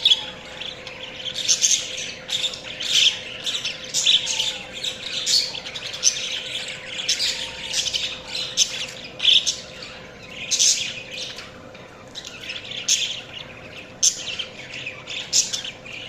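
Budgerigars chirping and chattering: a rapid, continuous stream of short, high-pitched chirps and squawks, easing off briefly around the middle before picking up again.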